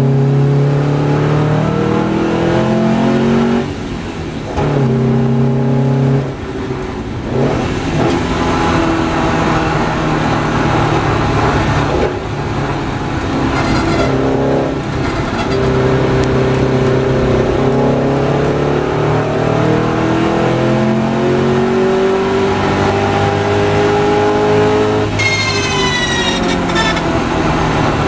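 Porsche 550 Spyder's air-cooled flat-four engine, heard from the passenger seat, pulling hard with its pitch climbing in each gear and dropping at each shift or lift. There are short lifts off the throttle a few seconds in, and a brief high whine near the end.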